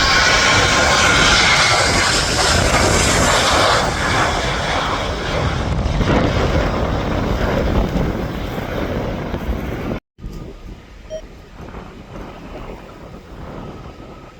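A fixed-wing aircraft's engines, loud and close, with a steady whine over a broad rush that slowly fades as the aircraft moves away. About two thirds of the way through the sound cuts off abruptly, leaving only much quieter background noise.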